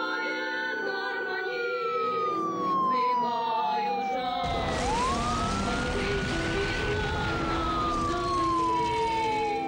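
Air-raid siren wailing twice. Each wail rises quickly, then slides slowly down over about four seconds. About halfway through, a loud rushing noise joins it.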